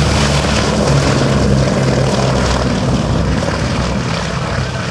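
Boeing B-17 Flying Fortress's four Wright Cyclone radial piston engines droning through a low pass, the sound slowly dying away toward the end.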